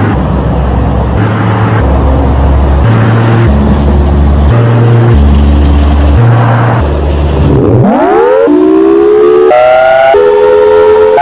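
A heavy low rumble that pulses on and off regularly, then a Federal Signal Thunderbolt 1002B outdoor warning siren starting about eight seconds in. Its tone sweeps steeply up in pitch, then keeps climbing more slowly into a loud wail as it winds up.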